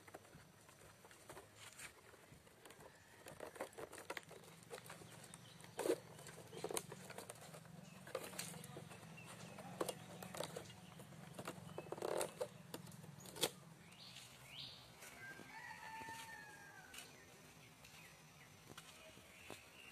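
Dry bamboo strips clicking, knocking and rustling as they are worked and woven by hand, with a few sharper knocks. Past the middle the handling stops and a bird calls a few times.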